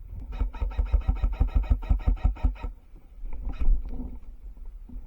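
Airsoft electric gun (AEG) firing a full-auto burst: a rapid, even string of shots, about nine a second, lasting a little over two seconds. A shorter, fainter rattle follows about a second later.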